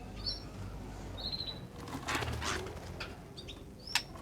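Small songbirds fluttering their wings and giving short, high chirps. There is a brief rustle of wing-beats about two seconds in, and two sharp clicks near the end.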